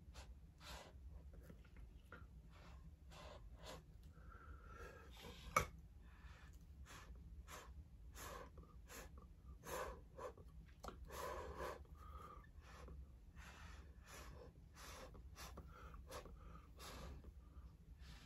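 Faint, quick scratching strokes, about two a second, of a pencil tip dragging through wet acrylic paint on a stretched canvas, with one sharp click about five and a half seconds in, over a steady low hum.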